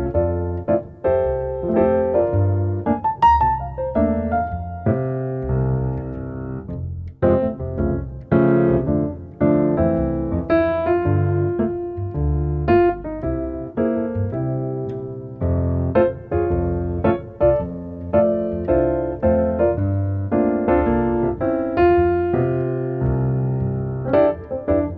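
Solo piano music: a melody of struck notes over sustained bass chords, played at an even pace.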